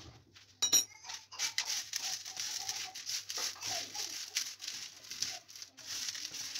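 Coarse salt being mixed by hand with ground spices on a plastic tray: a steady gritty crunching and rustling of salt grains, after a sharp clack near the start.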